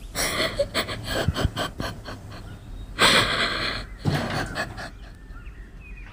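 A woman crying with a choked, stifled voice: ragged gasping breaths and sobs. The loudest breath comes about three seconds in, another follows about a second later, and then it quietens.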